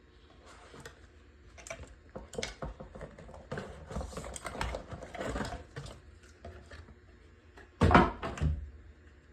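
Keyboard packaging being handled and opened: irregular rustling, scraping and small knocks of cardboard and wrapping, with a louder bump and rustle about eight seconds in.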